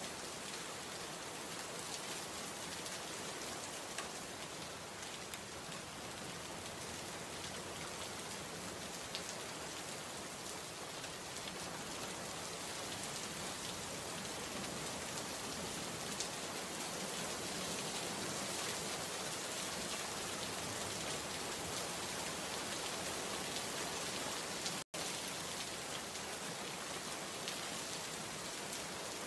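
Steady rain falling, an even patter of many drops with no gaps except a split-second dropout in the sound near the end.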